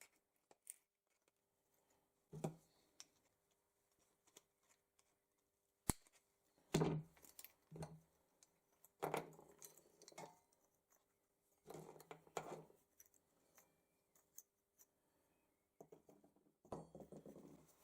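Faint, scattered clinks and scrapes of small brass chandelier parts being handled as an arm is taken apart, with one sharp click about six seconds in.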